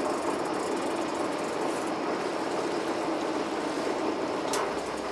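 Fishing boat's engine running steadily, a low even hum, with one short knock near the end.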